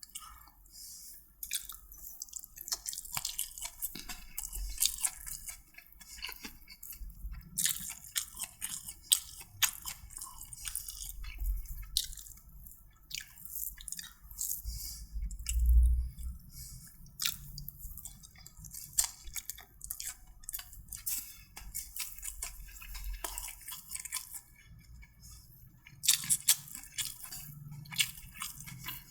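A person chewing and eating food close to the microphone: irregular wet smacks, crunches and small clicks of mouth and food.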